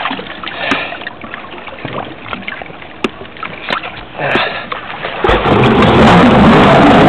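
Water lapping and splashing against the hull of a stopped jet ski, then about five seconds in the jet ski's engine starts up and runs loudly and steadily.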